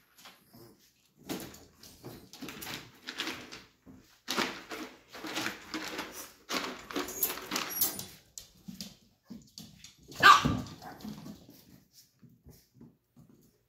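Small dogs barking and whimpering at each other in play, a run of short irregular yaps with the loudest one about ten seconds in. A wire crate's door clinks faintly around the middle.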